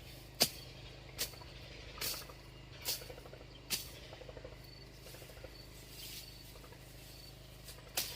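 A series of sharp knocks, about one a second for the first four seconds, then quieter, with one more knock near the end.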